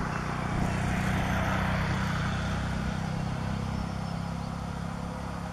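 WDP4 diesel-electric locomotive's two-stroke V16 EMD 710 engine running as it approaches hauling a passenger train: a steady low drone under a hiss, loudest in the first couple of seconds.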